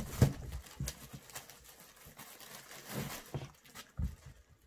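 Two cats scuffling on and against a cardboard cat house: a string of knocks on the cardboard and rustles of the paper and plastic bag on top, and thumps of paws landing on the wooden floor. The loudest knock comes just after the start, with more thumps about three and four seconds in.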